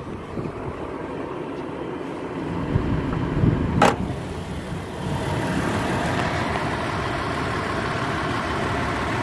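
Toyota 4Runner's 4.0-litre V6 idling. It grows louder and steadier after a sharp clunk about four seconds in, as the hood is raised over it.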